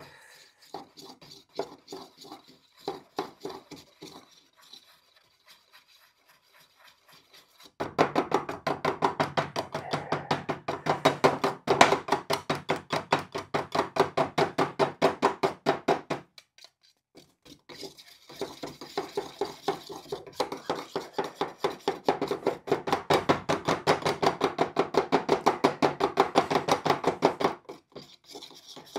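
Paint being stirred in a tin of cellulose paint, the stirrer knocking and scraping around the tin in fast, regular strokes. Softer strokes at first, then two long bouts of steady stirring with a pause of about two seconds between them.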